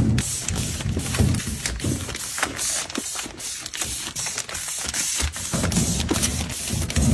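Plastic-wrapped packs of soft tissues being set down and slid into a stack on a shelf: a run of crinkles, rustles and soft taps.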